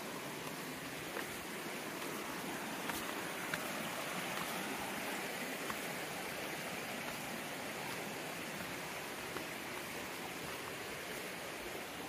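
Shallow rainforest creek running over rocks: a steady rush of water that swells slightly midway, with a few faint ticks now and then.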